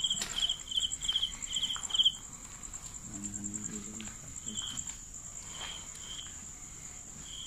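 Crickets chirping at night: a continuous high-pitched trill, with a lower pulsed chirp repeating about twice a second for the first two seconds and then only now and then. A faint low hum-like sound comes in briefly about three seconds in.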